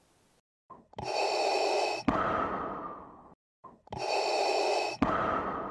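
Heavy breathing close to the microphone: two slow breaths, each a loud rush of air that fades away, about three seconds apart.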